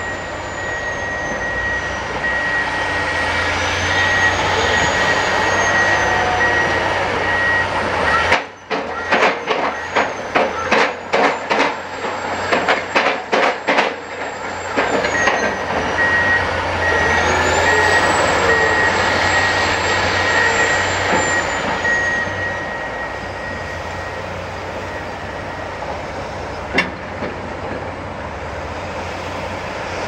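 Heavy diesel construction machinery running steadily at a piling site, with a reversing alarm beeping in a long high-pitched run twice. In the middle comes a run of sharp knocks, about two a second for some six seconds, and late on a single click.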